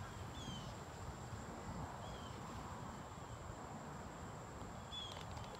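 Quiet outdoor ambience: about three short, sloping bird chirps over a steady high-pitched whine and a low rumble.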